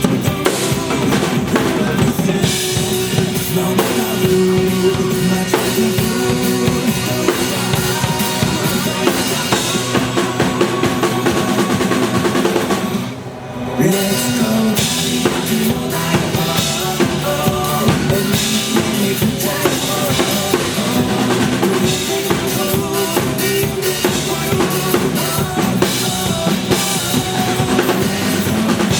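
Drum kit played live, with bass drum, snare and cymbals, over a rock song's backing track. The music briefly drops out for about a second near the middle.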